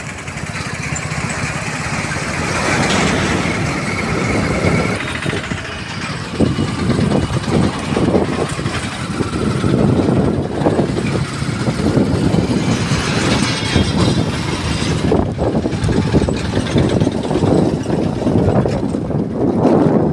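Running noise of a moving road vehicle on a bridge: engine and tyre noise as a dense, uneven rumble that rises a little over time.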